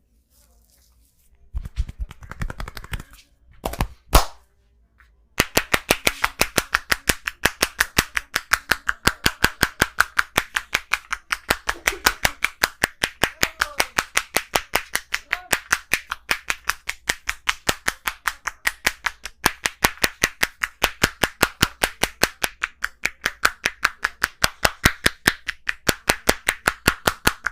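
Barber's hands striking rapidly in a percussion (tapotement) massage: a long run of even, sharp slaps at about five a second, starting about five seconds in. Before it, a short rubbing noise and a single sharp slap.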